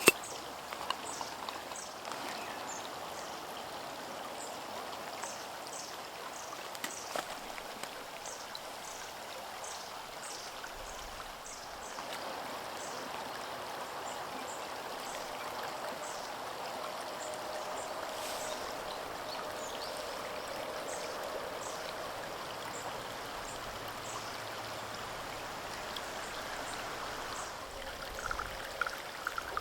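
Steady rushing, bubbling water sound with many short, faint high chirps over it.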